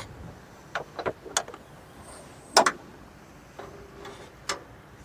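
A series of sharp metallic clicks and knocks, the loudest about two and a half seconds in, with a short squeak a little later: the latches and hinges of a mini excavator's engine hood and side cover being opened.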